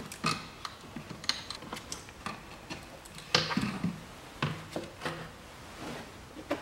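Throttle body being worked loose from the intake manifold and lifted out by hand: scattered clicks, taps and light knocks of metal and plastic parts, the loudest knock about three and a half seconds in.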